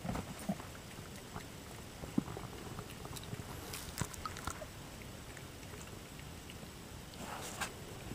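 Three-week-old kittens wrestling on carpet: faint scuffling with scattered soft clicks and thumps from their paws and bodies, a few sharper clicks around the middle and a brief scuff near the end.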